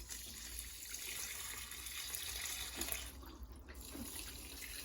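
Water pouring in a steady hissing stream, as liquid tomato feed is watered onto plants.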